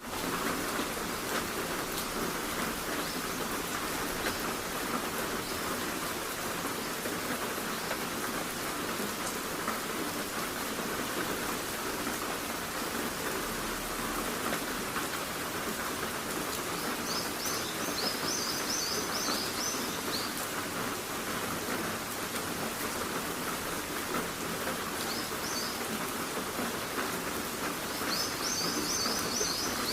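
Steady rain falling, an even hiss. Two brief clusters of short, high chirps sound over it, about halfway through and again near the end.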